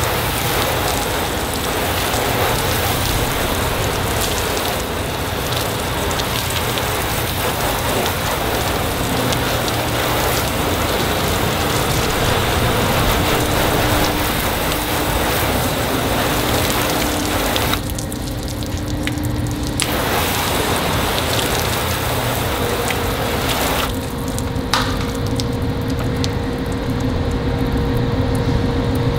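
Garden hose spray nozzle jetting water onto a car hood panel, a steady hiss and patter of water on the paint as the soap is rinsed off. The spray stops briefly about two-thirds of the way through, comes back, and cuts off about five seconds before the end.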